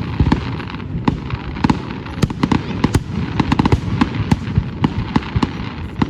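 Fireworks display, shells bursting in quick irregular succession: several sharp bangs a second over a continuous rumble and crackle.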